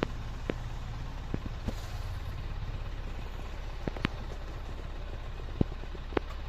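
A vehicle's steady low rumble while on the move, broken by about six irregular sharp clicks and knocks.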